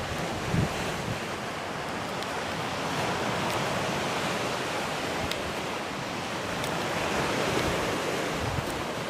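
Sea surf washing on a shingle beach: a steady rush of noise that swells gently a couple of times, with light wind on the microphone.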